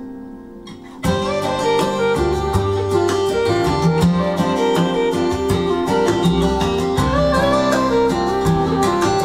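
Guitar music with quick plucked notes, played through valve power amplifiers as a listening test. A quieter passage fades out, then a loud new phrase comes in sharply about a second in.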